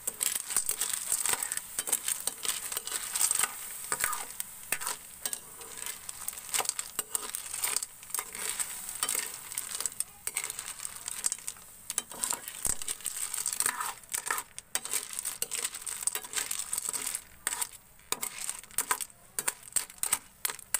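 Small freshwater snails in their shells being stirred in a steel wok with a metal spatula, the shells clattering and scraping against the pan in quick irregular clicks, over a steady sizzle from the tomato sauté.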